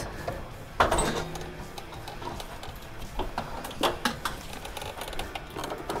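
An empty steel tank water heater being handled down through an attic hatch: a sharp knock about a second in, then scattered smaller bumps and knocks of the tank against the wooden frame and ladder.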